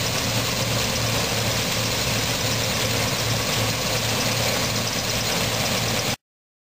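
John Deere C670 combine harvester running steadily under load as it cuts and threshes rapeseed: a constant low engine drone under a broad rushing hiss of machinery. The sound cuts off suddenly about six seconds in.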